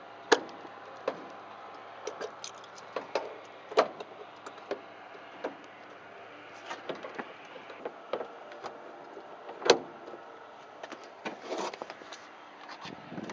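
Irregular knocks, clicks and bumps of a light aircraft's removable door being lifted off its hinges and stowed in the baggage area behind the seats, its frame and window panel knocking against the aluminium airframe. Two knocks stand out as the loudest, one just after the start and one about two-thirds of the way through.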